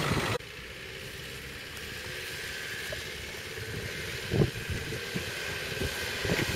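Off-road 4x4 engine running at low speed as the vehicle crawls along a rutted slope, growing gradually louder as it approaches, with a couple of short thumps about four and six seconds in.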